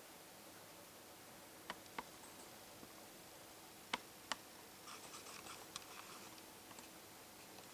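Quiet room tone with a faint steady hum, broken by a handful of small sharp clicks and a short patch of faint ticking a little past the middle.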